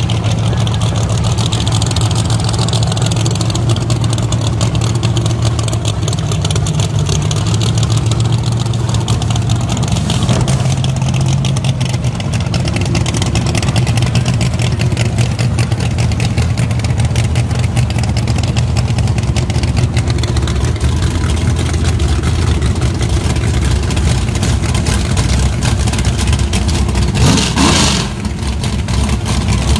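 Loud drag-race car engine idling with a rough, lumpy beat, its pitch lifting briefly about a third of the way in. A short sharp burst comes near the end.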